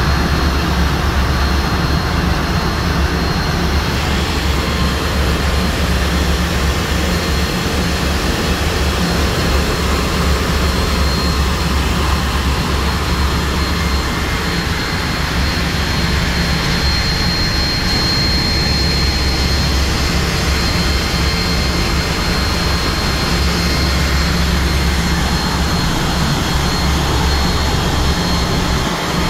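Loud, steady din of machinery in a bulk carrier's engine room: a deep hum under a wide wash of noise, with a thin high whine running through it. The deep hum eases about a second before the end.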